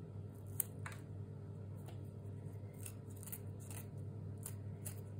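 Small metal blade scraping and cutting at the rotted stem base of an African violet cutting, clearing away root rot: faint, scattered short scrapes and clicks, one a little louder about half a second in.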